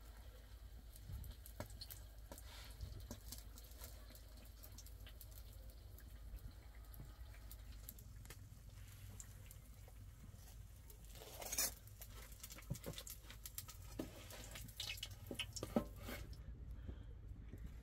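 Faint, scattered crackles and pops from the open wood-fire hearth and the pot of hot frying oil on it, with one louder crackle about eleven and a half seconds in.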